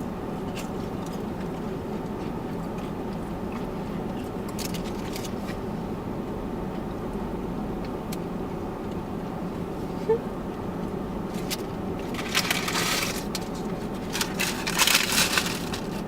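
Close-miked eating sounds: two spells of crackly crunching near the end, over a steady hum of a car interior.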